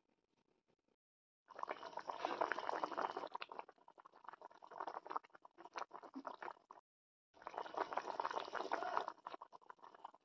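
Thick fish curry bubbling and spluttering at the boil in a steel wok, a dense run of small pops that starts about a second and a half in, breaks off briefly a little past halfway, then resumes and fades near the end.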